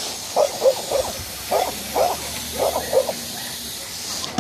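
Dog barking repeatedly: about six short barks, mostly in pairs, over a steady hiss.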